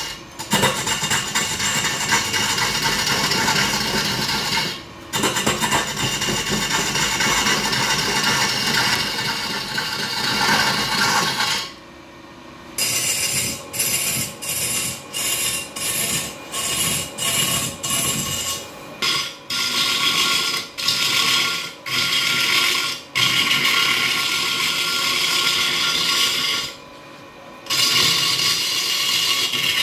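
Hand-held turning chisel cutting into a large wooden log spinning on a wood lathe, a rough, steady shaving and scraping sound. About halfway through, after a short pause, the cutting comes in many short strokes with brief gaps as the tool is lifted and set back against the wood.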